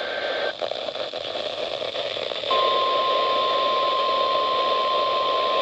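Hiss of a weather radio tuned to a NOAA Weather Radio station, then about two and a half seconds in a steady single tone near 1 kHz comes on and holds: the weather radio warning alarm tone being sent as a test.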